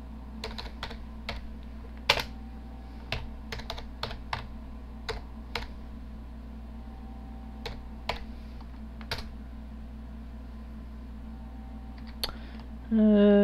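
Typing on a computer keyboard: scattered, irregular keystrokes with pauses between them. Near the end comes a brief, loud hummed 'hmm' from a person.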